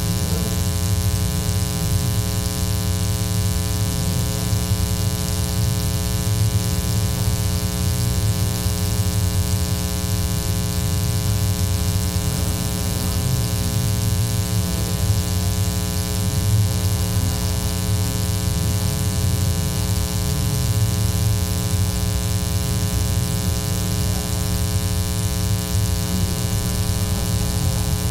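Steady electrical mains hum with a stack of evenly spaced overtones, unchanging throughout.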